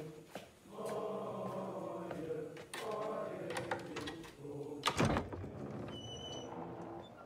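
Several voices in a slow, sustained chant, with a few clicks and one loud bang about five seconds in, after which the chanting fades.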